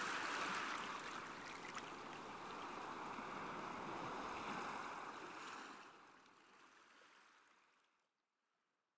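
Steady rush of running water in the background, fading out about six seconds in.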